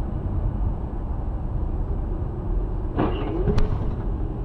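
Steady road and engine rumble of a moving car, heard from inside the cabin. About three seconds in there is a short sound that slides in pitch, followed by a sharp click.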